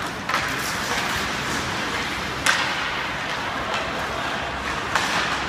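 Ice hockey play in an indoor rink: steady rink noise with three sharp hockey cracks of stick, puck or boards, the loudest about halfway through.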